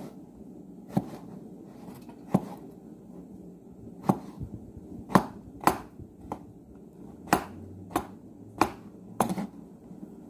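Kitchen knife cutting luffa gourd into chunks on a white cutting board: about ten sharp knocks as the blade strikes the board, irregularly spaced.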